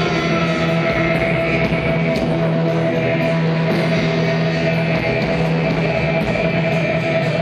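Rock music with guitar: a dense, even wall of sound over steady held tones, with a cymbal ticking at an even pace.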